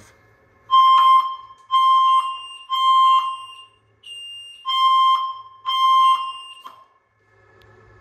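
Fire alarm system sounding the temporal-three evacuation pattern, three short beeps, a pause, then two more before it cuts off, with a fainter, higher beep in the pause. It is the walk-test signal for a smoke detector that has just gone into alarm from real smoke.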